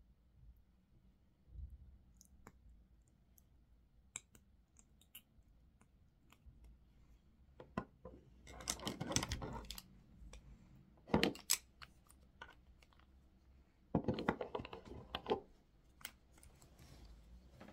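Small plastic and glass makeup items handled on a table: caps and tubes clicking, and a bottle, brush and pencils tapped and set down. Scattered clicks at first, then three short flurries of clattering in the second half.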